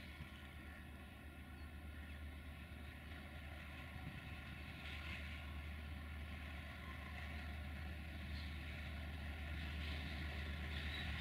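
Diesel engines of a Romanian diesel locomotive and a Duewag BR628 diesel railcar running as the two trains approach side by side: a steady low drone that grows gradually louder.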